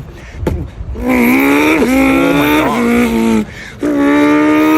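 A man imitating a Ferrari 458's engine with his voice: a buzzing rev that climbs and drops sharply twice like gear changes, then after a short break a long held note.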